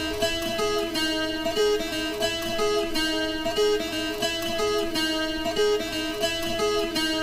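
Music: an Afro house remix with a repeating plucked guitar riff of short, evenly spaced notes, and the deep bass dropped out.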